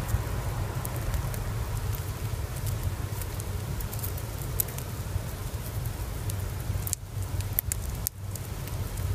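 Dwarf hamster nibbling a pumpkin seed: a run of small, quick crackling clicks over a steady low rumble, which briefly drops out twice near the end.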